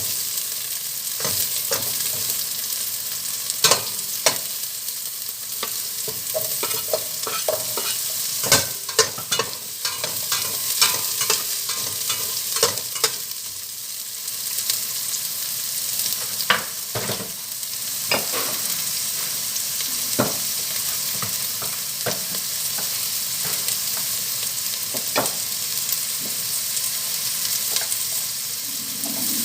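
Pork sizzling as it fries in a pan and is stirred, with a steady hiss and scattered clinks and scrapes of the cooking utensil against the pan.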